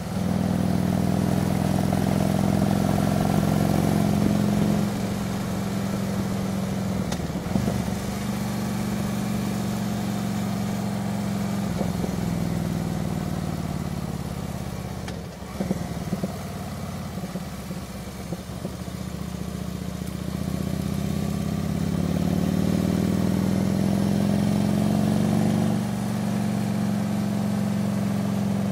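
Harley-Davidson touring motorcycle's V-twin engine running on the road, heard from on the bike with wind noise over it. The engine note eases about five seconds in and dips briefly around midway. It then climbs steadily as the bike accelerates and eases again near the end.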